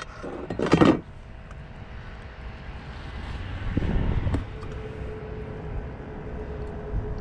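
Wind rumbling on an open-air head-mounted microphone, with a brief scuffle of handling near the start and again around four seconds in. A faint steady hum comes in about halfway through and holds.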